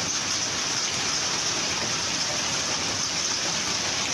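Heavy rain falling in a storm: a steady, even hiss that does not change.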